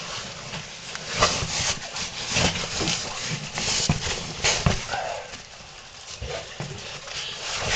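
Cavers scrambling over rock: irregular scraping, scuffing and knocking of bodies, boots and gear against stone.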